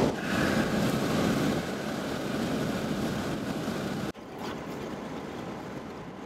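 Steady wind and road noise rushing through the open windows of a 2015 Ford Mustang EcoBoost cruising at about 68 mph. The rush is strongest in the first second or so, cuts out for an instant about four seconds in, and goes on quieter and duller.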